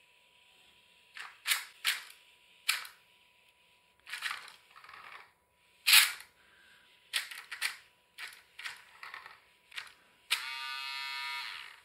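Small electric gear motor of a battery-powered toy car running in short stop-and-go spurts as it keeps its distance from the car ahead, then buzzing steadily for about a second near the end.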